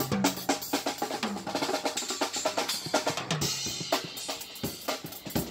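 Two drum kits played together by street drummers: rapid snare, bass drum and cymbal hits, with toms ringing low between the strokes.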